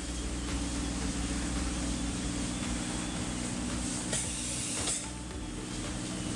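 Spray-foam gun hissing as closed-cell foam is sprayed onto wall sheathing, over a steady low mechanical hum. Two short clicks come about four and five seconds in.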